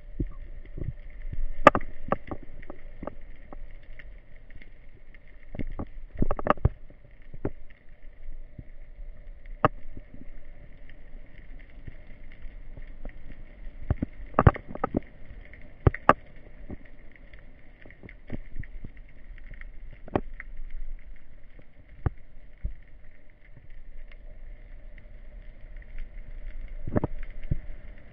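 Underwater sound picked up by a camera in a waterproof housing: a faint steady hum with irregular sharp clicks and knocks, a cluster of them about halfway through.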